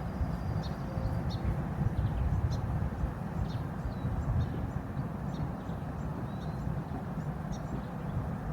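Small birds chirping in short, high calls scattered throughout, over a steady low rumble.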